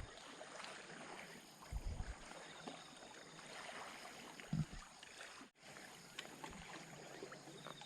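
Faint water and wind noise on the camera microphone, with a few short low bumps.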